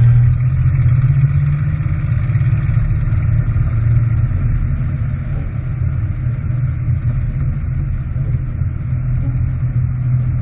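Isuzu Trooper driving through deep snow: a steady, loud, low engine rumble with an even rushing noise over it.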